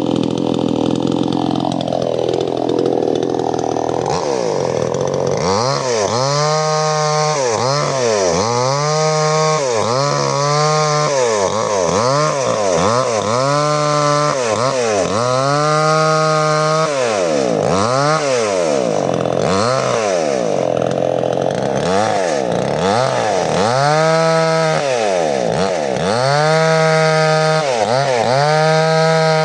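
58 cc two-stroke chainsaw ripping a log lengthwise, its engine pitch repeatedly rising and falling about once a second as the chain bites and frees in the cut. The pitch drops at the start, and the cycling pauses for a few seconds past the middle.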